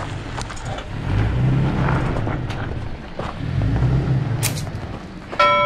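Toyota Tacoma pickup's engine rising in two surges as it climbs a steep rocky slope at crawling speed, with scattered crunches and knocks from tyres on rock. Near the end, a steady tone of several pitches starts suddenly.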